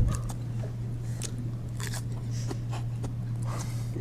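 A person chewing a hot pepper: irregular crunching bites and mouth clicks over a steady low hum.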